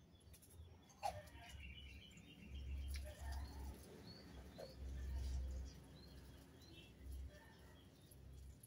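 Faint outdoor birdsong: short high chirps scattered through, with a low rumble that comes and goes underneath.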